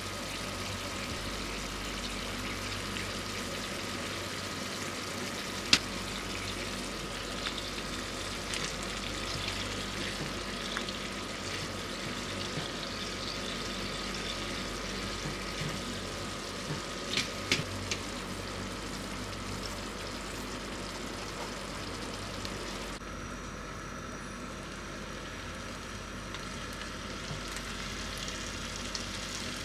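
Tomato slices sizzling steadily in hot oil in a nonstick frying pan, with a few sharp knocks of a silicone spatula in the pan, the loudest about six seconds in and a quick cluster around seventeen seconds.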